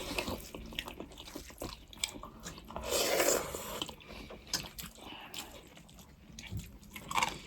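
Close-up mouth sounds of eating goat meat soup with rice: chewing and small wet clicks, with one louder noisy burst about three seconds in.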